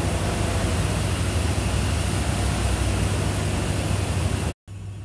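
Steady rushing noise with a strong low rumble underneath and no siren or speech.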